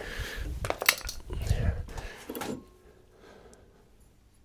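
Metal parts of a wood chipper clinking and knocking as they are handled and pulled free during disassembly, with one sharp click about a second in, stopping about two and a half seconds in.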